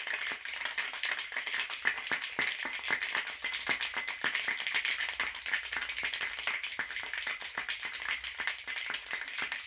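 Large ice cubes rattling and knocking inside a Boston shaker (metal tin capped with a mixing glass) shaken hard and fast, a continuous rapid rattle with no pause. The shake mixes jam, lemon juice and gin and chills the cocktail.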